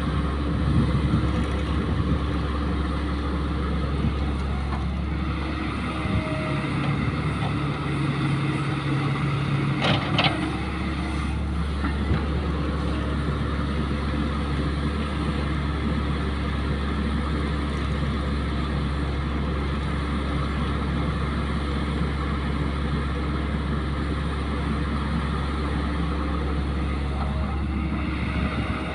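Caterpillar crawler excavator's diesel engine running steadily as it digs and swings its boom. A short sharp clank comes about ten seconds in.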